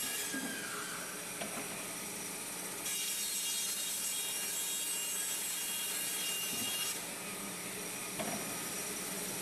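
TRUPRO HSW-11 horizontal band resaw running and sawing a wooden board fed by its powered rollers: a steady whine with several high ringing tones. It gets louder and brighter about three seconds in and eases back around seven seconds.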